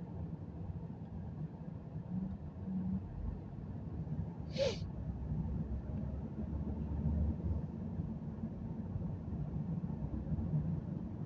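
Steady low road and engine rumble inside a car's cabin as it moves slowly in traffic. About four and a half seconds in there is one brief, breathy, hissing sound.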